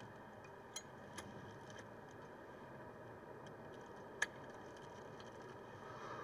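Small plastic lighter being flicked: a couple of light clicks, then one sharp, louder click about four seconds in.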